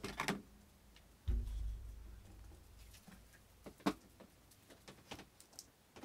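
Handling noise from a pistol and its packaging: a few scattered clicks and knocks, with one dull thump about a second in, as the Kriss Vector is lifted out and its box set aside.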